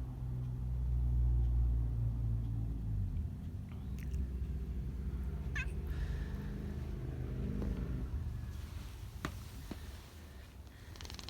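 Domestic cat purring: a low, steady rumble that is loudest in the first few seconds and fades out about eight seconds in, with a few faint clicks.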